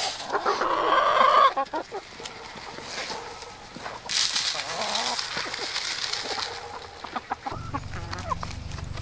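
A flock of hens clucking as they crowd a feeder and eat, while chicken feed is scooped out of a galvanized metal can and poured into a trough, the grain hissing as it runs out about four seconds in.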